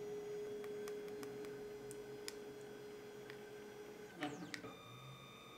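Genmitsu 3018 Pro CNC router's stepper motor driving the spindle carriage along the X axis: a faint, steady whine that stops about four seconds in, with a few light clicks. After it stops, a fainter, higher steady tone remains.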